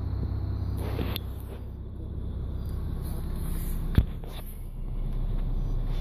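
A steady low mechanical hum, with rustling handling noise and one sharp knock about four seconds in as the camera is swung down and handled.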